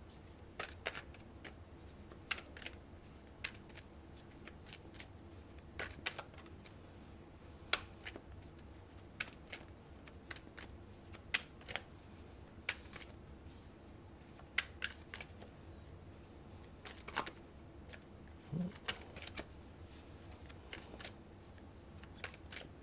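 A deck of oracle cards being shuffled by hand: irregular crisp snaps and riffles of the cards, several a second, over a faint steady hum.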